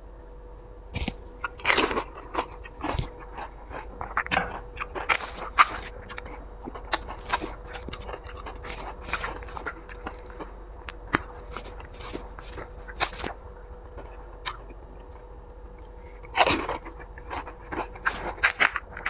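Crisp fuchka (panipuri) shells cracking and being chewed as they are eaten quickly, an irregular run of short crunches with louder clusters now and then. A faint steady hum lies underneath.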